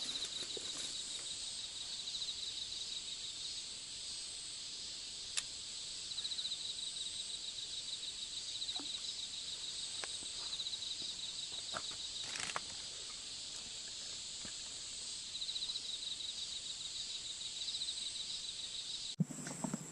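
Insects chirping at night: a high steady buzz with a pulsing trill that comes and goes, and a few faint clicks. The sound cuts off abruptly near the end.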